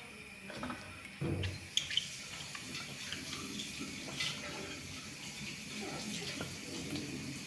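Tap water running into a kitchen sink, a steady splashing hiss with small clinks, after a dull thump about a second in.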